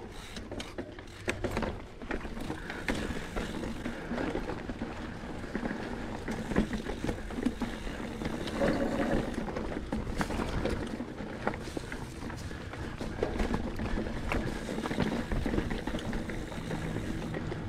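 Mountain bike rolling over a rocky trail: a steady rolling noise from the tyres, with frequent clicks, knocks and rattles as the bike runs over rocks.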